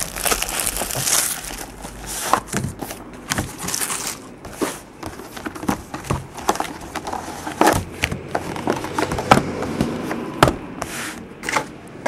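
Plastic shrink wrap crinkling as a wrapped trading-card box is opened and handled, with the smaller wrapped card boxes inside knocking and sliding on a hard tabletop in many short clicks and taps.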